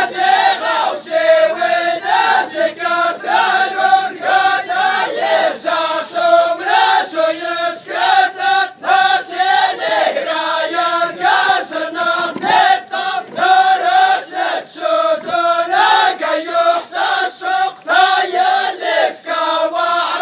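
Music: a group of voices chanting in unison over a steady percussion beat.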